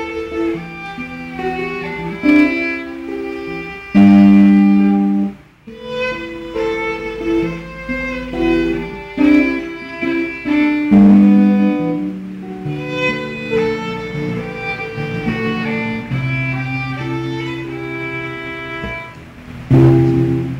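Music: a violin melody of held notes over plucked guitar, with a short drop in level about five seconds in.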